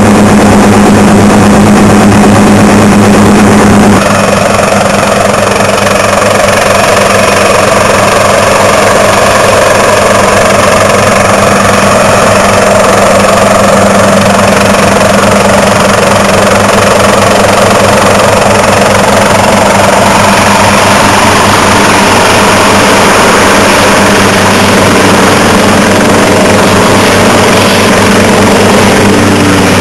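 Helicopter in flight: loud, steady engine and rotor noise with a constant low hum. About four seconds in the low hum drops back and a higher rushing noise comes forward.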